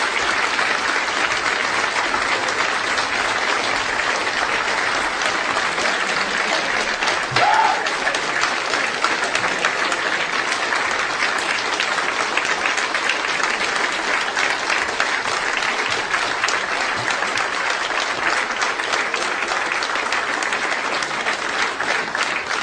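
An audience applauding, a steady dense clapping, with a short call standing out about seven seconds in.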